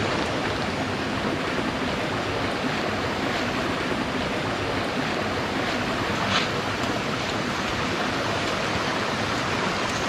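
Steady rush of running water, with one short click a little past halfway.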